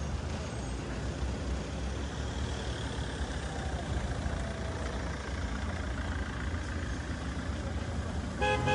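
Low, steady rumble of an idling vehicle engine over street noise.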